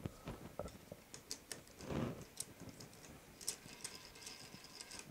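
Faint, scattered small metallic clicks and taps from an Allen key being fitted into the top-cap bolt of a bicycle stem and headset. A louder handling knock comes about two seconds in.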